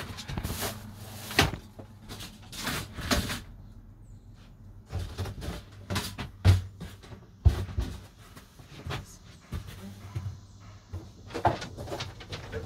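Irregular knocks, bumps and rustling of stored items being handled and moved about on a wooden shed floor and shelves, with a few sharper knocks standing out.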